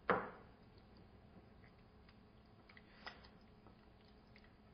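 Hands rubbing a wet spice marinade onto catfish steaks: faint squishing with scattered small clicks, after one sharper sound at the very start.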